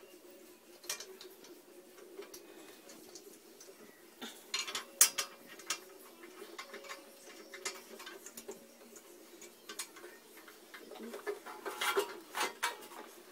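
Light metallic clicks and clinks of treadmill parts, screws and hand tools being handled during assembly, sharpest about five seconds in and again near the end, over a faint steady hum.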